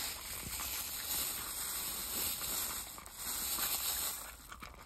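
Jack Russell terrier eating dry kibble from a plastic bowl, a dense run of crunching and rattling that dies down near the end.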